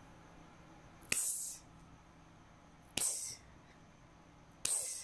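Small dog snorting sharply through its nose three times, about two seconds apart, each a short hissing huff, while sniffing at its fabric dog bed.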